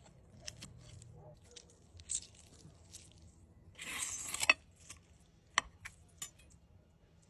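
Cutting food on a plate: soft crunchy crackles as a fork breaks into a crisp-skinned roast potato, then about four seconds in a knife cuts through the seared crust of grilled picanha with a louder crunchy scrape lasting about half a second. A few sharp clicks follow.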